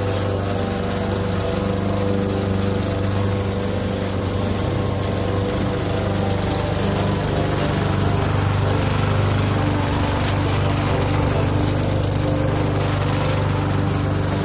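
Victa petrol walk-behind lawn mower engine running steadily while cutting grass.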